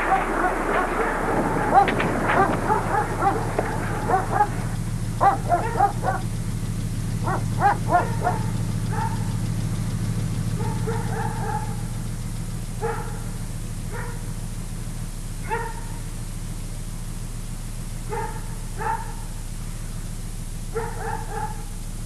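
A dog barking in short bursts, busiest in the first few seconds and then in spaced groups of two or three barks, over a steady low hum.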